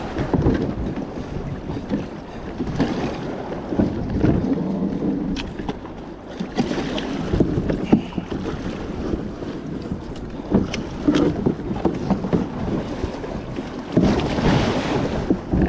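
Wind buffeting the microphone and choppy waves slapping against a kayak grounded on rocks, with scattered knocks and clunks on the hull.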